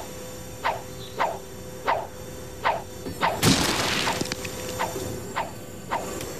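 Wrecking-ball sound effects: a string of sharp knocks, roughly one every half second or so. About three and a half seconds in comes a crash of bricks tumbling down as the wall gives way, followed by a few more knocks.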